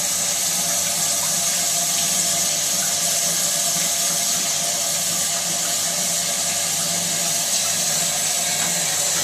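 Hot water tap running steadily into a sink, drawing hot water so that the combi boiler fires. A faint steady hum lies under the rushing water.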